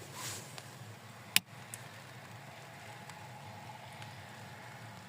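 A single sharp click about a second and a half in, with a softer one just after, over a low steady background rumble.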